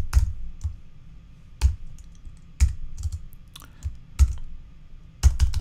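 Typing on a computer keyboard: scattered single keystrokes, then a quick run of several near the end.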